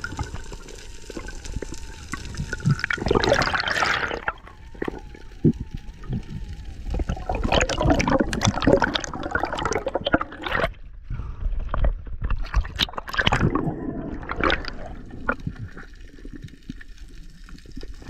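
Underwater water noise heard through a diving camera: gurgling and bubbling that swells in several irregular surges, with scattered small clicks and knocks.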